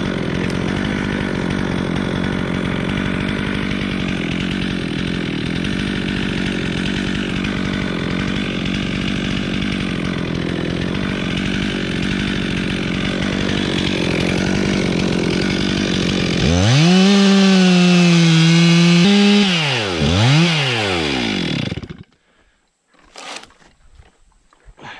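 Two-stroke chainsaw cutting through a tree trunk under steady load. About 16 seconds in the cutting noise stops and the engine revs up freely, then it is blipped down and up twice and shut off about 22 seconds in. A few faint knocks follow.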